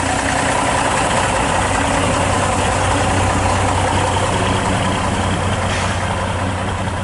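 Diesel engine of a vintage half-cab double-decker bus running steadily with a low, even hum as the bus drives slowly past.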